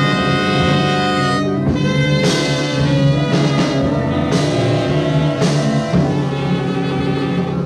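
Instrumental music: sustained chords over a steady low bass, the chord changing every second or so.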